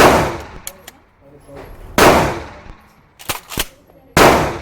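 Three 12-gauge shotgun blasts about two seconds apart, each with a short ringing decay, and a couple of sharp clicks between the second and third.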